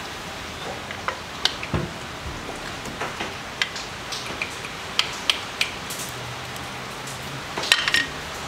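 Light metallic clicks and taps, scattered and irregular, as small screws and an Allen socket are handled by hand against a motorcycle's transmission and frame, over a steady hiss. A quick cluster of clinks comes near the end.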